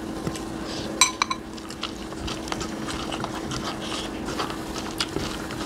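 Close-up eating sounds: chewing and lip smacking with many small wet clicks, and a utensil clinking on a ceramic plate about a second in.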